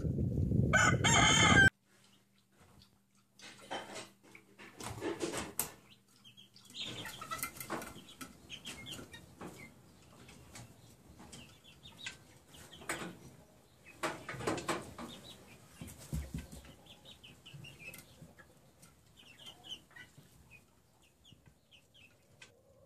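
A rooster crows briefly over a loud low rumble near the start. The sound then cuts off abruptly, and a quieter stretch follows of young chickens clucking and giving short high peeps on and off.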